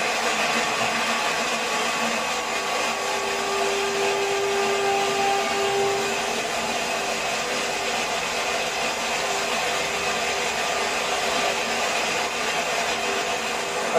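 Waterfall running: a steady rush of falling water.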